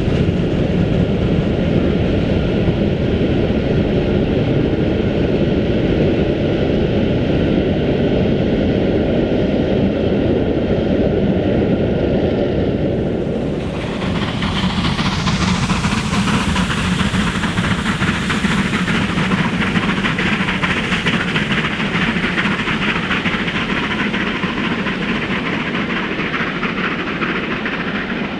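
Steam-hauled passenger coaches rolling steadily past, their wheels clicking over the rail joints. The sound changes abruptly about halfway through, where a second passing of coaches takes over.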